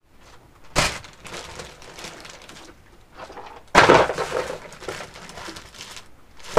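Crackling, rustling noise with a sharp knock about a second in and a louder one near four seconds, each followed by a spell of crackle.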